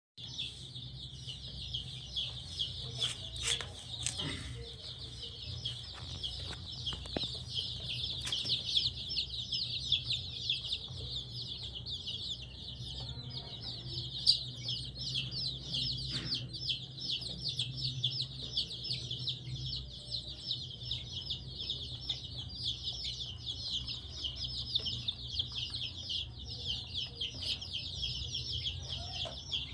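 A brood of week-old chicks peeping continuously: many short, high, falling cheeps overlapping without pause, over a low steady hum.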